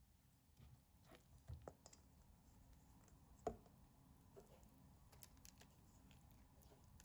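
Near silence with faint handling noise: a few soft clicks and light knocks, the sharpest about three and a half seconds in.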